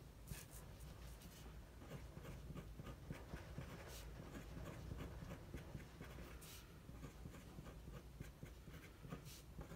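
Faint scratching of a pen writing on a sheet of printer paper, in short strokes with a few brief ticks as the pen touches down and lifts.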